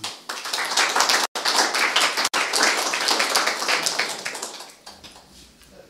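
Audience applauding, many people clapping at once; the applause fades away about four to five seconds in, and the sound cuts out for an instant twice.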